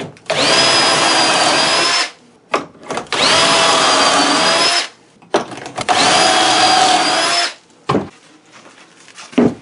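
Power drill boring pocket holes into plywood with a Kreg pocket-hole jig bit: three runs of about a second and a half each, the motor whining up to speed, holding steady, then stopping. Small clicks and a knock come between the runs.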